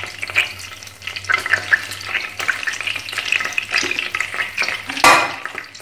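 Whole spices (bay leaf, cinnamon stick and cardamom) crackling and sizzling in hot ghee in a frying pan, with one brief louder burst about five seconds in.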